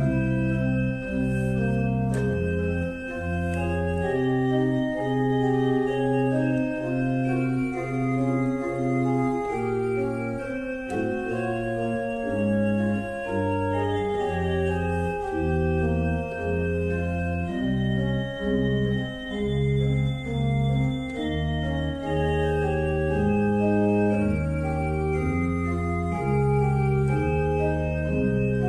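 Organ music: sustained chords over a moving bass line.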